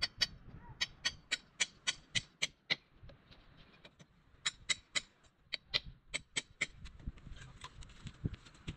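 Hammer tapping at the base of a metal-clad wall in quick light strikes, about four a second, in two runs with a pause of about two seconds between.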